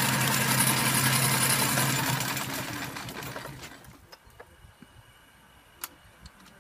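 Miniature steam engine of a model Hornsby chain-track crawler running with a steady hiss and low hum, then dying away over a second or two about halfway through. A few small clicks follow, one sharper near the end.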